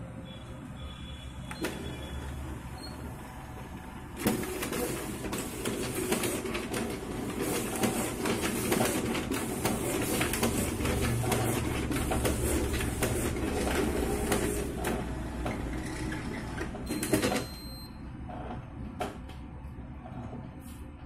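Canon imageRUNNER copier's automatic document feeder pulling the originals through and scanning them. About four seconds in, a dense mechanical whirring full of rapid clicking starts and runs for about thirteen seconds, ending in one sharp, louder clack. Before and after it, only the copier's low steady hum.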